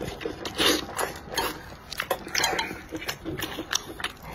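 Wet chewing, sucking and lip-smacking on a mouthful of chili-sauced stuffed stomach, heard close up as a string of short irregular bursts and clicks.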